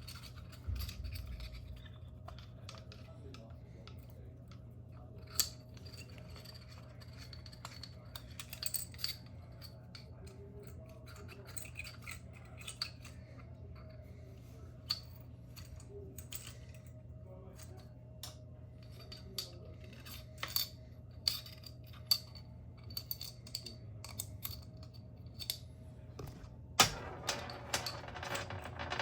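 Scattered light clicks and taps of small metal parts as a screw is worked out of a GU10 track light head, with a short scraping rattle near the end as the shade comes free. A steady low hum runs underneath.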